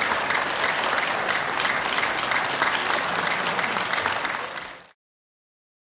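Concert audience applauding steadily, a dense mass of clapping that fades out quickly about four and a half seconds in.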